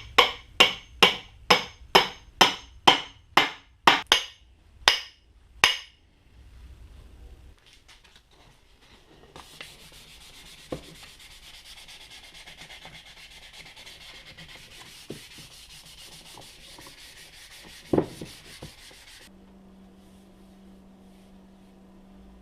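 A run of about a dozen sharp hammer blows, roughly two a second and slowing, which stops about six seconds in. Later there are about ten seconds of steady sanding on wood, with one loud knock near the end.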